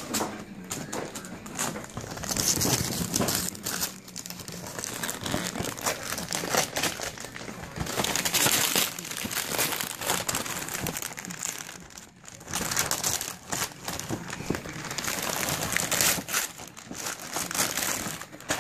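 Gift-wrap and tissue paper crackling and crumpling as a present is unwrapped by hand. It comes in busy bouts with short lulls.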